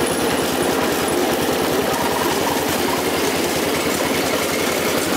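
Riding lawn mower engine running steadily with a fast, even pulsing beat as the mower drives across the lawn.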